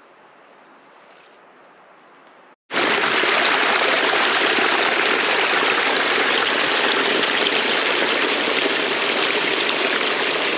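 Small forest stream splashing over rocks in a little waterfall: a loud, steady rushing of water that starts suddenly about two and a half seconds in, after a faint steady hiss.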